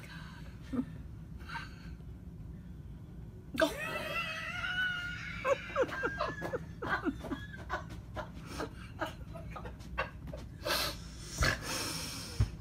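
A person laughing hard: a high, wavering sound starts suddenly about three and a half seconds in, then breaks into quick short bursts, over a steady low hum.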